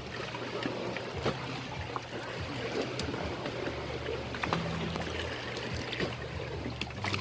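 Freshly caught fish flapping and slapping on the wet floor of a boat as they are handled, a scatter of sharp wet knocks every second or so, over a low steady hum.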